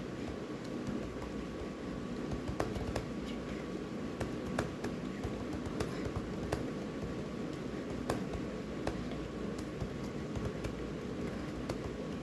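Typing on a small keyboard: irregular key clicks, a few a second, over a steady background hiss.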